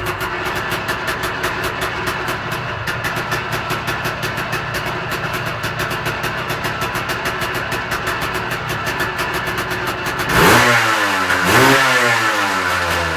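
Yamaha DT 180 two-stroke single-cylinder engine idling steadily, then blipped twice near the end, pitch rising and falling quickly each time. The owner is showing a strange noise from it.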